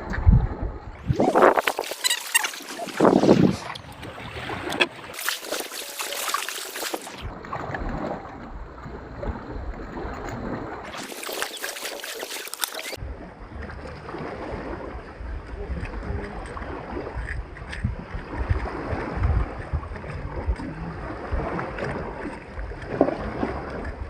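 Wind rumbling on the microphone by the sea, a steady low buffeting, broken three times by short stretches of bright hiss.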